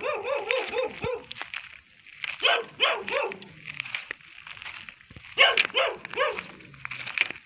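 A dog barking in three runs of several quick barks, with short pauses between them: a dog on guard, barking an alert.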